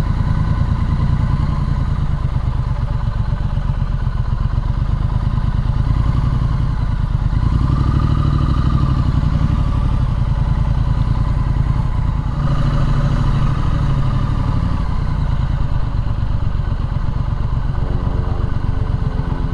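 Triumph Street Scrambler's 900 cc parallel-twin engine running while riding at town speeds, with two rises in revs about eight and thirteen seconds in.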